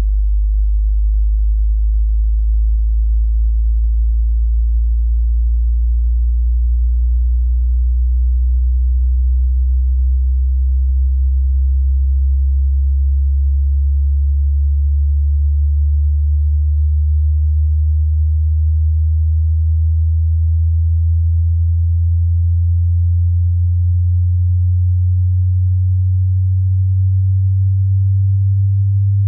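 Hearing-test tone: a single pure tone, very low in the bass, held at an even loudness while it slowly rises in pitch from about 60 Hz to about 100 Hz.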